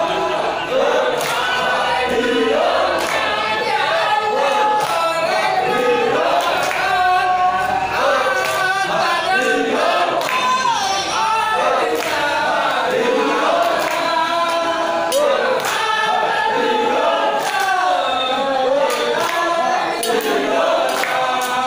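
A group of men singing sholawat together for a Madurese samman dance, with scattered sharp clicks through it.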